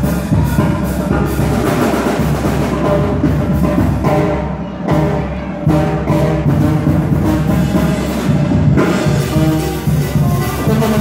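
Loud dance music with a steady drum beat, played over a sound system in a large hall. About four seconds in, the highs drop out briefly before the full beat returns.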